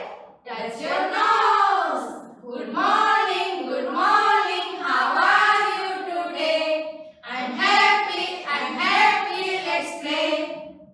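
A group of women singing a nursery rhyme together in unison, phrase by phrase, with short breaks between lines.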